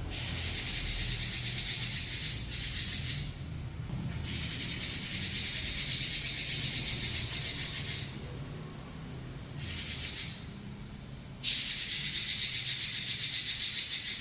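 Pekin robin (red-billed leiothrix) singing long, rapid rolling trills of several seconds each, broken by short pauses, with one brief burst near the middle.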